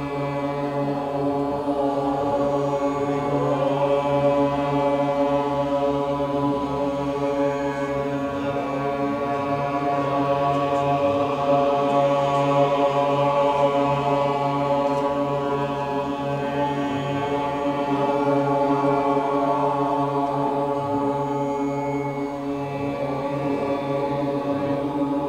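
Group chanting of a mantra, many voices holding one steady pitch together without a break.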